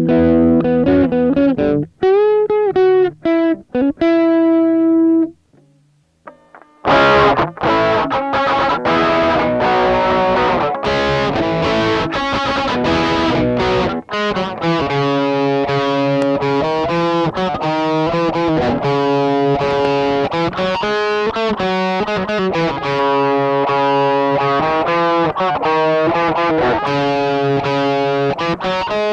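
Electric guitar played through a Palmer Pocket Amp MK II preamp pedal on its crunch setting: overdriven chords and riffs with single ringing notes. Near the start there is a short pause, then steady chord playing.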